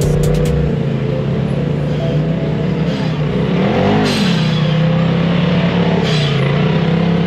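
Polaris RZR side-by-side engine running under load as it climbs a steep rocky trail and passes close by, with a short rise and fall in revs about four seconds in.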